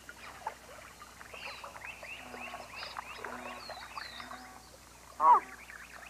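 Marsh ambience: small birds chirping and twittering in scattered short calls, with one louder call about five seconds in.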